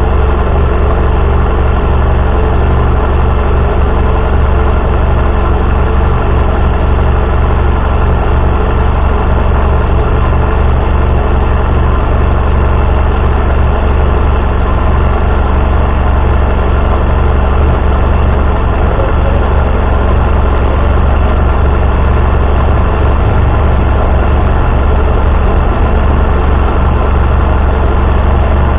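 Motorcycle engine idling steadily with a constant low hum.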